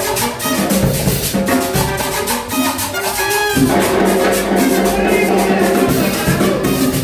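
Live cumbia music: a band playing sustained instrumental notes over a steady, evenly spaced percussion beat.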